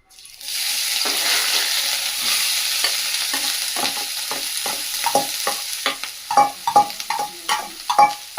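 Food sizzling in hot oil in a pan, the sizzle starting suddenly about half a second in. From about halfway on, a utensil stirs in the pan, knocking against it a couple of times a second.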